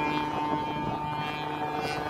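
Steady hum of a ship underway: constant mechanical tones over a wash of wind and engine noise.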